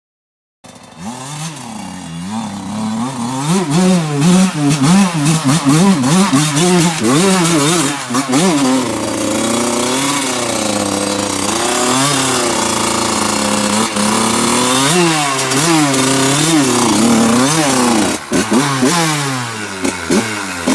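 Enduro dirt bike engine revving up and down over and over while being ridden off-road, with quick rises and drops in pitch as the throttle opens and closes. The sound cuts in abruptly about half a second in.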